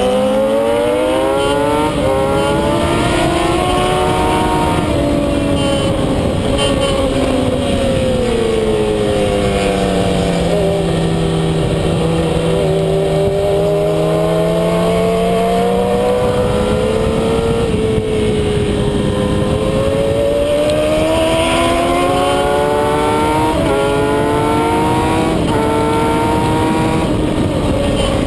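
Kawasaki ZX-10R's inline-four engine heard from on board at racing speed, with heavy wind rush over the microphone. The engine note climbs at the start, falls away through the middle as the bike slows for a corner, then climbs again, stepping up through several quick gear changes near the end.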